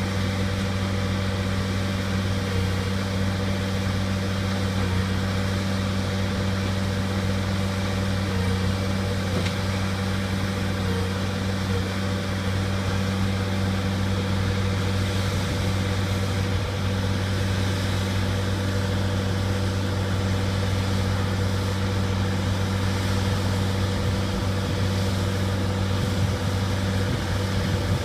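Bobcat skid-steer loader's engine running at a steady speed, an even low hum with no revving.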